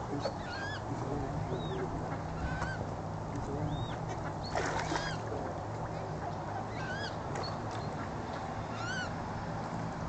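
Mallard ducks giving short, high, arched peeps, about one or two a second, over a steady low hum.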